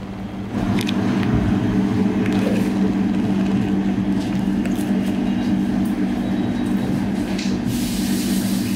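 A steady machine hum that grows louder about half a second in and holds, with a few faint clicks over it.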